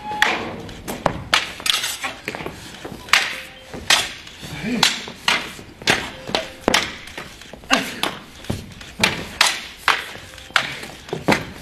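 Sharp, irregular clacks and whacks, several a second, from two martial artists sparring with a long pole weapon, weapons and bodies striking, with a few voices underneath.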